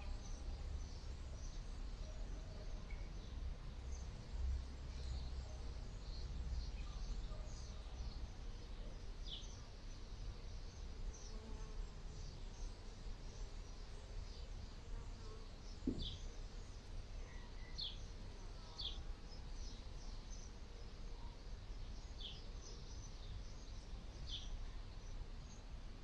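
A bee buzzing as it forages on a sunflower head. Short, high, falling chirps come now and then over a low rumble, and there is one brief knock about two-thirds of the way through.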